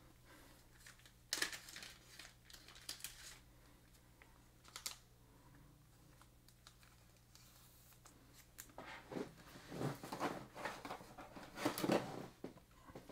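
Faint rustling and clicks of plastic as a trading card in a clear plastic sleeve is handled, in scattered bits with a busier stretch near the end.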